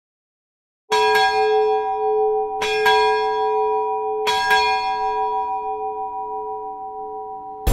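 A ship's bell struck six times in three pairs, starting about a second in. The pairs come about a second and a half apart, and each stroke rings on and slowly fades. Struck in pairs like this, it is the 'six bells' of a ship's watch-keeping count.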